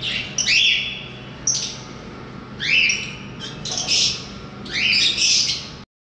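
Small pet parrots squawking: shrill calls in bursts about once a second, each call sweeping up and then down in pitch. The sound cuts off abruptly just before the end.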